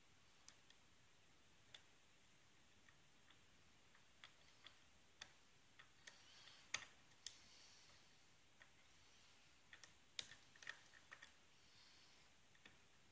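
Faint, irregular clicks of a lock pick working the pins inside a six-pin cylinder lock, a few sharper clicks standing out about halfway through and again later on.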